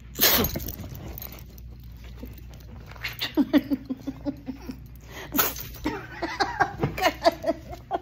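A person's loud fake sneeze just after the start, then a scuffle with a dog: rapid pulsing, pitched grumbling vocal sounds from about three seconds in, with a few knocks and rustles as the phone is jostled.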